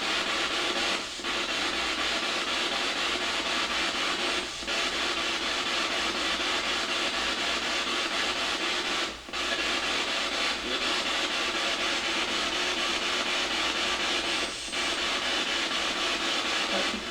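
Spirit box sweeping through radio frequencies: a steady hiss of radio static, dropping out briefly four times.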